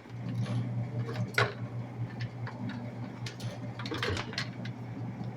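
A low, steady electrical hum that comes on suddenly, with scattered clicks and taps over it.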